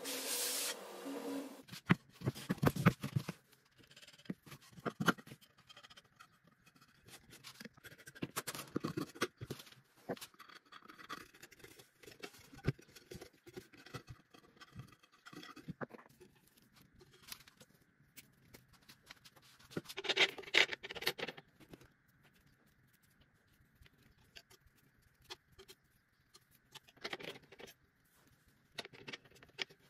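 A belt sander runs with a plywood disc held against the belt and stops about a second and a half in. After that come scattered clicks, knocks and scraping as hands handle an angle grinder, wooden discs and trimmer line on a rubber mat. There is a louder clatter of knocks about twenty seconds in and another near the end.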